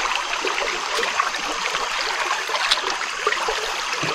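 Steady rush of flowing river water, with small scattered clicks and splashes as the catch of prawns and fish is handled in the bottom of a wooden boat.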